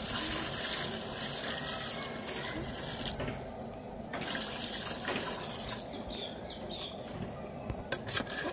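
Water poured in a stream into a large steel pot of chicken masala, splashing into the liquid as water is added for cooking the rice; the pour breaks off about three seconds in and resumes more weakly. A few sharp clicks near the end as a metal ladle knocks the pot.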